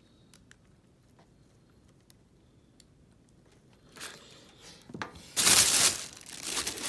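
Tissue paper in a shoebox rustling and crinkling loudly as it is pulled back from the sneakers, starting about five seconds in after a few quiet seconds of faint card handling.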